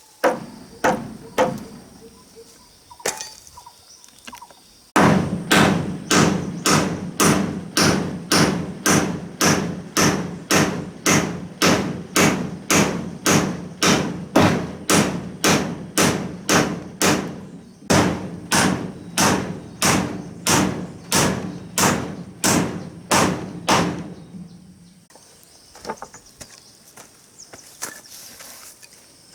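A tool striking wood: a few scattered knocks, then steady blows about two a second for some twenty seconds, each with a short resonant ring, broken once by a brief pause.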